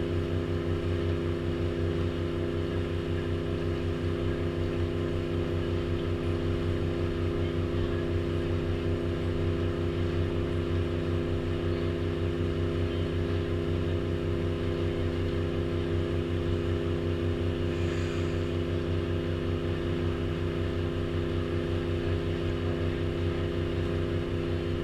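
Tour boat's engine running steadily while underway, an even low drone made of several steady tones that holds without change.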